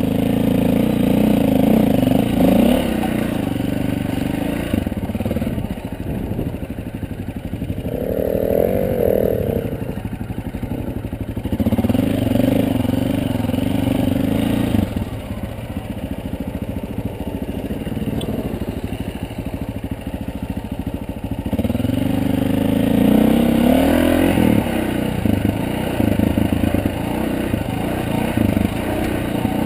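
Dirt bike engine on a rocky trail, revving up and easing off with the throttle, louder in stretches near the start, in the middle and for several seconds near the end. Loose rocks rattle and crunch under the tyres.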